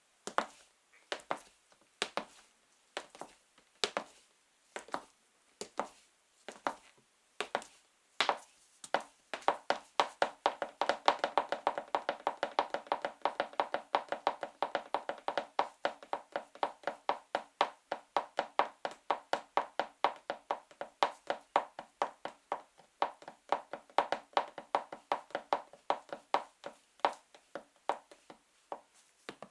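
High-heeled sandals tapping on a floor: slow steps about once a second, then from about nine seconds in a fast, rapid run of heel taps, several a second.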